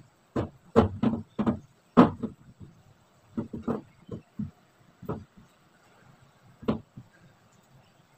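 Irregular knocks and clicks of hands working at a kitchen range hood, twisting and tugging at a part that will not come loose. The knocks come thick in the first two seconds, then thin out, the last one about seven seconds in.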